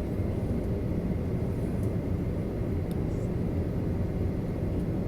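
Steady low rumble of cabin noise inside a Boeing 737-800 with its CFM56-7B engines running.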